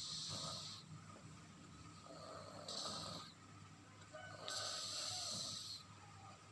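A sleeping toddler snoring: three snoring breaths about two seconds apart, the last the longest.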